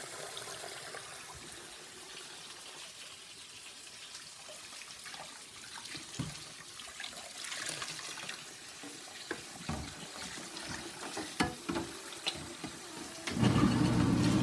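Water running from a kitchen tap into a sink, with a few knocks and clatters. About a second before the end a louder, steady low hum starts.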